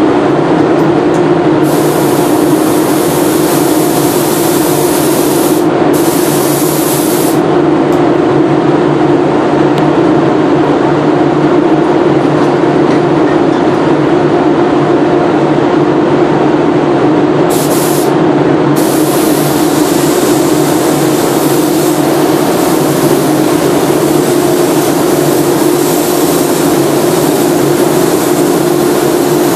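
Gravity-feed paint spray gun hissing with compressed air each time the trigger is held: a stretch of a few seconds about two seconds in, a shorter one soon after, a brief one past the middle, then steady spraying through the last ten seconds. Under it runs a loud, steady fan drone with a hum.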